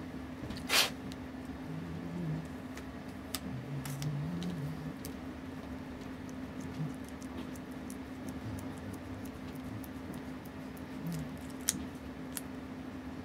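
Light clicks and taps of small tools and parts being handled at a watchmaker's bench, the loudest just under a second in and another near the end, over a steady low hum.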